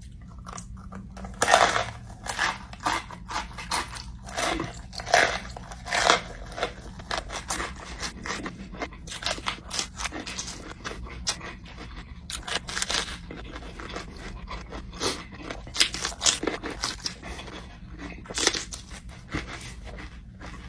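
Close-up chewing and crunching of a raw hot pepper: an irregular run of crisp crunches and wet mouth clicks, a few louder bites among them, over a steady low hum.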